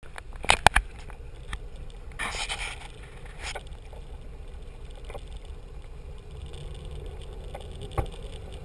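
Steady low rumble of a motor cruiser under way, heard from the flybridge, with a faint steady hum over it. A few sharp knocks come near the start and another near the end, and a short burst of hiss about two seconds in.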